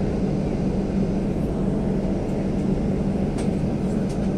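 Steady drone of an airliner cabin on the ground before takeoff, with a strong, even low hum. A couple of faint clicks near the end.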